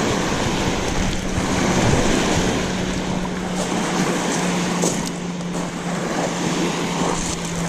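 River waves from boat wakes washing and breaking against a rocky gravel shore, with wind buffeting the microphone. A steady low hum runs underneath.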